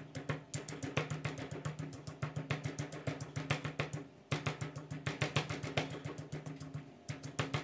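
Stone pestle pounding chillies, garlic and peanut brittle in a granite mortar: quick repeated thuds with a few short breaks, over background music with guitar.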